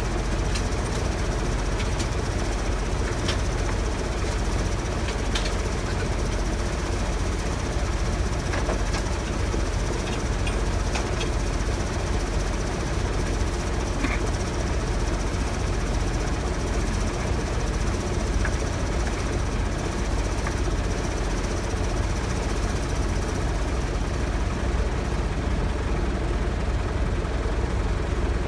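Heavy engine running steadily at a constant speed, with a few light clicks and knocks scattered through it.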